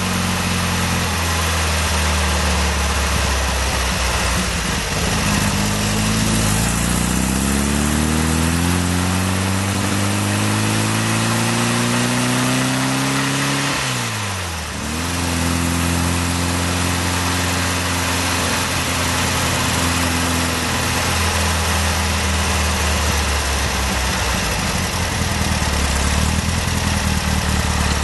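VW T2 camper's air-cooled flat-four running through a JK Stainless single quiet pack exhaust, heard from the rear bumper while driving. The exhaust note rises in pitch over several seconds, drops sharply about halfway through, then holds steady.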